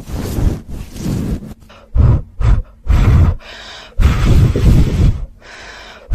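Something rubbed and scrubbed directly on the microphone in irregular strokes. Each stroke is a loud scratchy noise with a heavy low rumble; some are short, and one near the middle lasts over a second.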